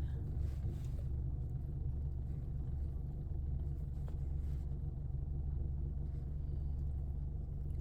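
Steady low rumble of a car, heard from inside the cabin with the engine running.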